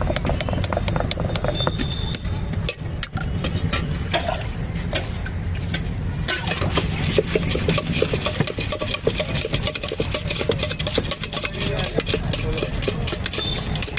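A steel spoon clinking and scraping against a steel bowl as bhel is stirred and tossed, the clicks coming thick and fast from about six seconds in, over a steady low engine rumble.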